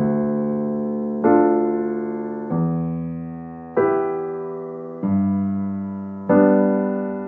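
Slow, calm piano music: a sustained chord struck about every second and a quarter, six in all, each fading away before the next.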